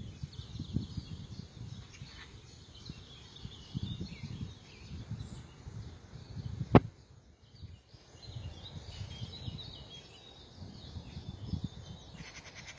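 Small birds chirping faintly over uneven low rumbling of wind on the microphone, with one sharp click a little past halfway and a rapid trill starting near the end.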